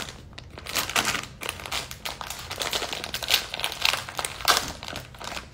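Crinkly plastic blind bag crackling and rustling as it is handled and pulled open, in dense irregular crackles with the loudest ones past the middle.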